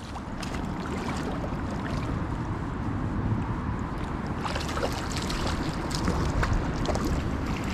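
Rushing river water with wind buffeting the microphone, and scattered small splashes and clicks.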